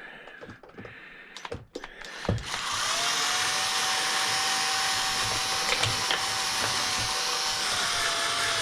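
A few light clicks and knocks of handling, then about two and a half seconds in a power drill starts and runs steadily with a single whine.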